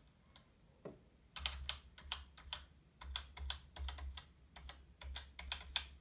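Keys of an ONEXELOT ENIGMA RN12 semi-mechanical gaming keyboard being pressed in quick, irregular runs of clicky taps, each with a dull thud. The taps start about a second and a half in.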